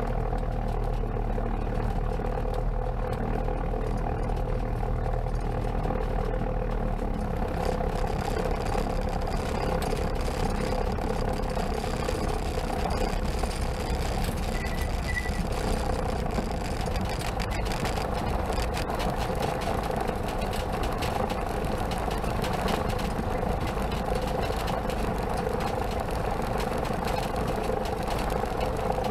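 Comco Ikarus C22 ultralight's engine running at low power as the aircraft taxis on grass, heard from inside the cockpit. The steady engine note shifts about seven seconds in, when its deepest part drops away.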